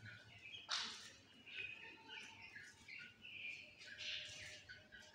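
Young partridges giving short, soft chirping calls scattered through, with one sharp tap about three-quarters of a second in.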